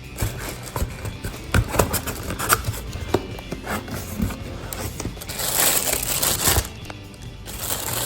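Cardboard reel packaging being handled and opened: scattered knocks, taps and scrapes, with a longer rustling slide a little past the middle. Quiet background music runs underneath.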